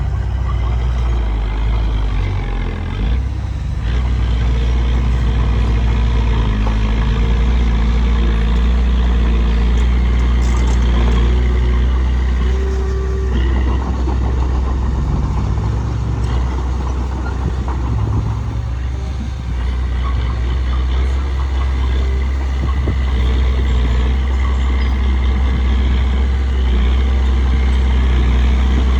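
Bulldozer's diesel engine working steadily as it pushes dirt, a continuous heavy low drone with small rises and dips in level.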